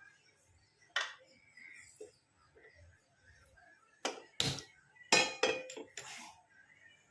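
Pan and kitchen utensils being handled, clinking and knocking: a single knock about a second in, then a quick run of sharp clatters in the second half as a pan is set on the stove.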